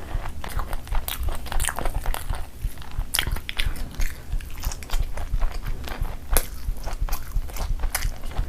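Close-miked eating sounds from a meal of Indian rice and curry: chewing and biting, with many irregular wet mouth clicks and smacks.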